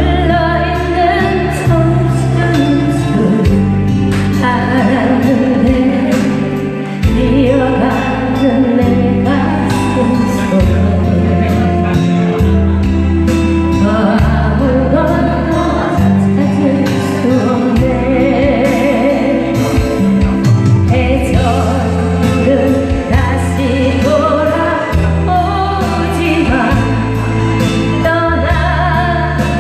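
Music: a song with singing over a steady accompaniment with a bass line.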